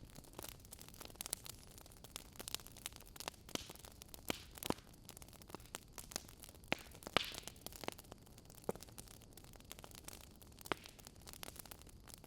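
Crackling wood fire: a soft steady hiss with irregular sharp pops and snaps.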